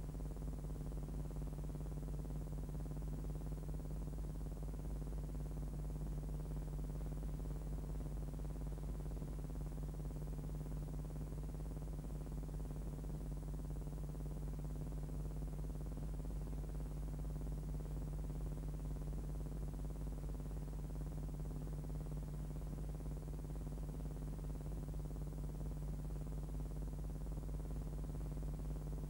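Steady low hum with faint hiss, unchanging, and nothing else heard.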